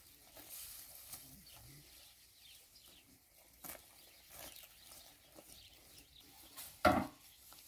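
Quiet field sounds: faint rustles and light knocks of a pitchfork working a pile of cut alfalfa in a trailer, with one short, louder sudden sound near the end.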